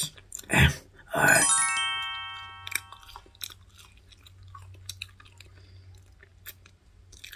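Close-miked eating: loud crunchy bites into a toast sandwich, then quieter chewing and mouth clicks. About a second in, a twinkling chime sound effect rings out as a run of bell-like tones and fades over a couple of seconds.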